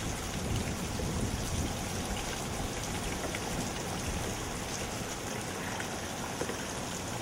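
Wind and rain in a hurricane's outer feeder band: a steady rushing noise with uneven low rumbling.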